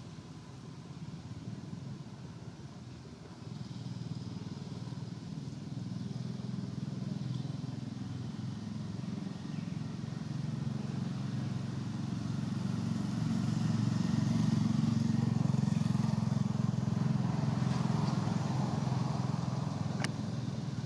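Low, steady engine rumble of a motor vehicle, growing louder through the first half and easing slightly near the end. A single sharp click sounds near the end.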